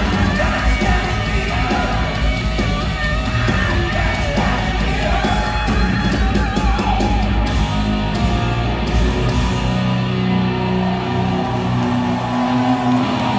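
Live hard rock band playing loud through a concert PA in a large hall: electric guitar, bass and drums with yelled vocals, heard from the audience. About ten seconds in the deepest bass drops away, leaving held notes.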